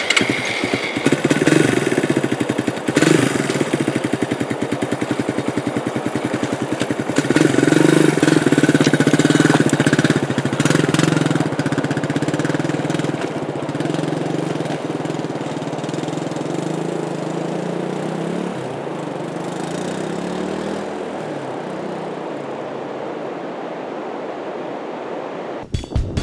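Suzuki dual-sport motorcycle engine revving as the bike pulls away, climbing and dropping in pitch through several gear changes, then fading steadily as it rides off into the distance.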